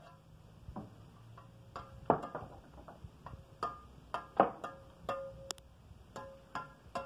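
A steel mason's trowel tapping and clinking against clay bricks, in irregular sharp strikes, several of them ringing briefly with a metallic tone. The strikes come faster in the second half.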